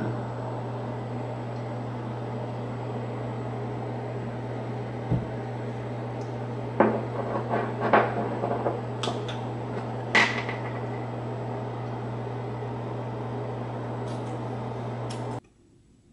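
Bathroom exhaust fan running with a steady low hum, which cuts off suddenly near the end. A few sharp clicks and knocks sound over it about halfway through, the loudest about ten seconds in.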